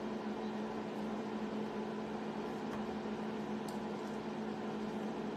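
Steady electric hum of an appliance fan motor, two steady tones over an even hiss.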